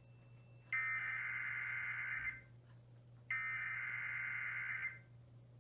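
Emergency Alert System SAME header: two bursts of buzzy digital data tones, each about a second and a half long and a second apart, sent at the start of a broadcast emergency alert.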